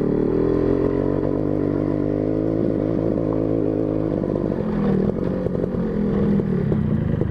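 Motorcycle engine running steadily under way. It breathes through a box air filter fitted over its big carburettor, which is meant to cut the intake's snoring noise.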